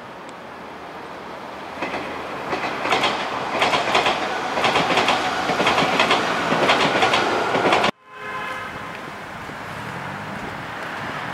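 A train passing, getting louder over a couple of seconds, its wheels clacking rhythmically over the rail joints. It cuts off abruptly about eight seconds in, giving way to a steady hum of road traffic.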